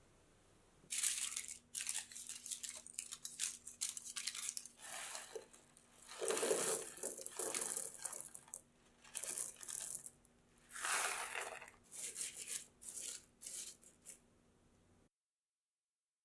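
Aluminium foil crinkling as it is pressed into a tart tin, then tart stones (pie weights) poured from a bag onto the foil, rattling, loudest about six seconds in, followed by more short bursts of rustling and rattling. The sound cuts off abruptly about fifteen seconds in.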